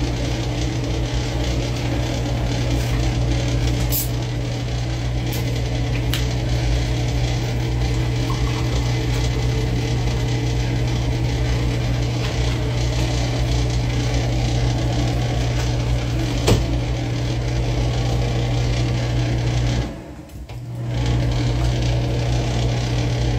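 Steady low mechanical hum of a running electric motor, with a few faint clicks and knocks over it; the hum dips out for about a second near the end.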